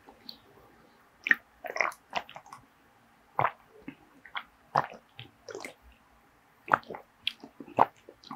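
A person gulping and swallowing a canned juice drink close to the microphone: a string of separate wet mouth and throat sounds, about one every second.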